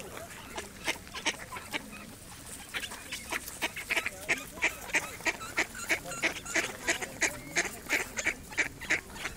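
Mallard ducks quacking: a few scattered quacks at first, then from about three seconds in an even run of about three quacks a second.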